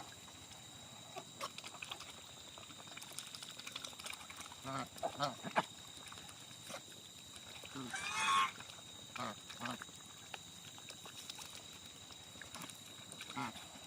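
Geese honking: a few scattered calls, the loudest about eight seconds in.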